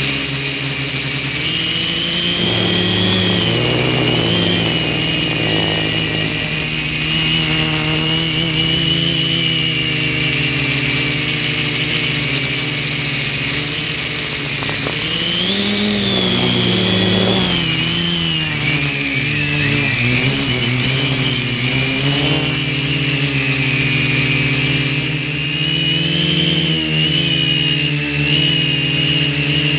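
Quadcopter's four brushless motors (NTM Prop Drive 900KV) spinning 10x4.5 propellers, heard up close from a camera on the frame: a continuous buzzing whine whose pitch rises and falls as the throttle changes, swinging most sharply about halfway through.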